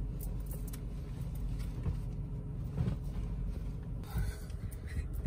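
Steady low rumble inside a car cabin, with rustling and handling of denim shorts as they are pulled on.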